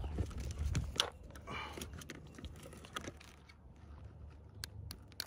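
Light clicks and handling noise as fishing pliers and hands work a lure's treble hooks out of a small largemouth bass's mouth. There is one sharp click about a second in and a few quick clicks near the end.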